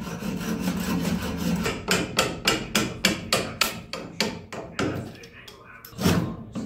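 A hand tool worked on a wooden trim piece: steady scraping for about two seconds, then quick, even strokes about three to four a second for about three seconds, and one louder stroke near the end.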